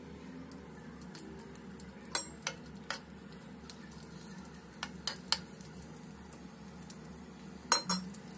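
Garlic frying faintly in hot oil in a clay pot, with a steel spoon clicking and knocking against the pot several times as chillies go in; the sharpest knocks come about two seconds in and again near the end.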